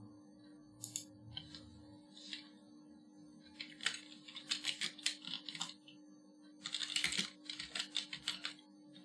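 Typing on a computer keyboard in two quick bursts, about four and about seven seconds in, with a few single key or mouse clicks before them. A steady low electrical hum runs underneath.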